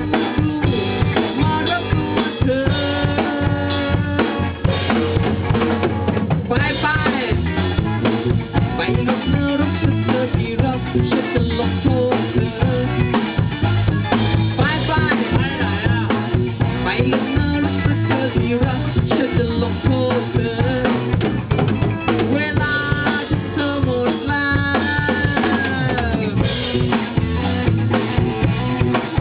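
Band music: a drum kit keeping a steady beat under bass and melodic lines that bend in pitch.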